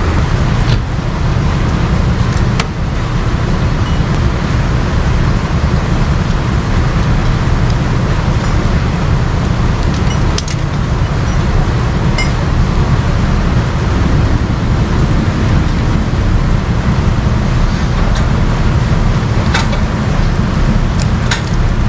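Tow truck engine idling with a steady deep rumble, under a hiss of falling rain, with a few light clicks.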